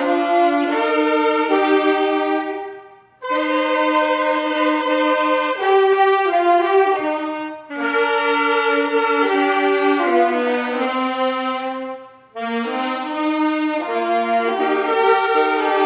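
Instrumental music led by brass playing sustained chords in phrases of about four seconds, with short breaks between them.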